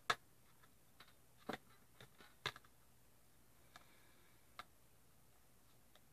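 Scattered sharp clicks and taps of tarot cards being handled on a tabletop, irregular, most of them in the first half.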